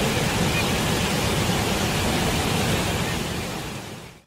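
Steady rushing of a large waterfall swollen with floodwater, fading out near the end.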